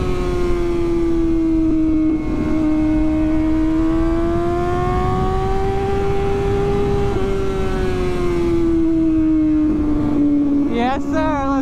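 Kawasaki Ninja sportbike engine under way at moderate, steady revs, its pitch easing down, climbing slowly, then easing down again, over a rush of wind.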